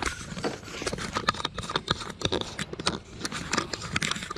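Handling noise from a GoPro on a pole being taken in hand: irregular clicks, knocks and scrapes of the mount and pole, several a second.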